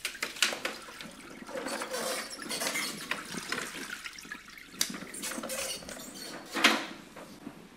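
Wet flat mop being squeezed in a mop bucket's wringer press: plastic clicks and knocks from the press, with water wrung out and splashing into the bucket. One louder knock comes about two-thirds of the way through.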